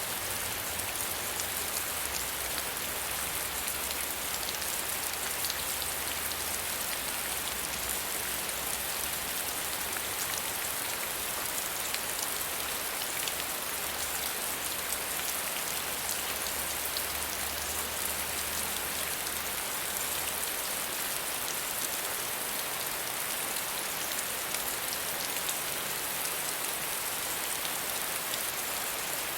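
Steady gentle rain falling, with a dense patter of individual drops, and a faint low rumble underneath that comes and goes.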